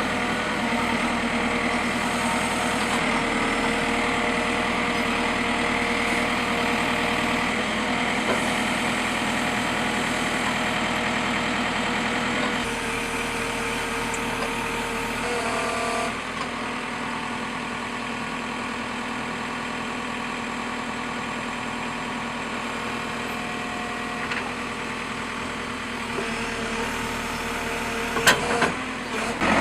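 JCB 3CX backhoe loader's diesel engine running steadily, with a constant pitched note. The sound gets slightly quieter and changes tone about halfway, and a few sharp knocks come near the end.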